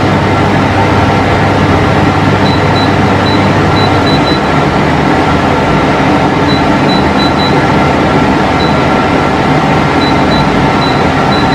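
Exceline portable air conditioner running, a loud steady fan-and-compressor hum; a low part of the hum drops out about four seconds in.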